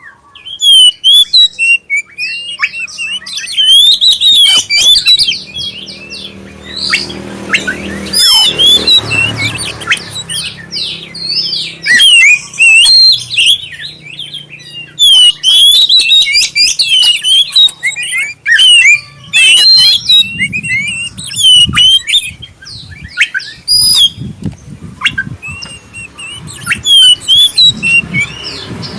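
Oriental magpie-robin of the black-breasted form (kacer dada hitam) singing a loud, fast, varied song of clear whistles, chirps and harsher notes in quick phrases with short breaks.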